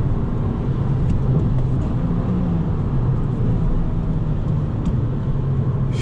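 Fiat Punto's 1.4 Fire naturally aspirated four-cylinder engine running steadily while driving, heard from inside the cabin with road rumble and tyre noise from the wet road; the engine hum settles slightly lower in pitch about halfway through.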